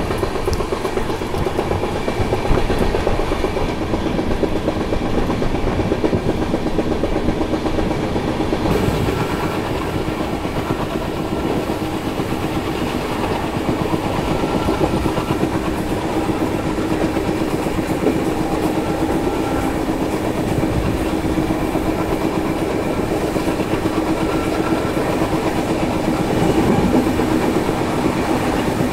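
Diesel-hauled Indian Railways express coaches running at speed, heard from an open doorway: steady rumble and clatter of wheels on the track. The sound changes abruptly about nine seconds in.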